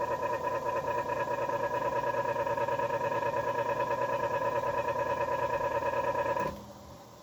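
Emerson 24-inch circulator fan running on high with a steady pitched hum and a fast pulsing beat, then switched off and going quiet about six and a half seconds in. The motor draws seven amps, the sign of a burnt motor.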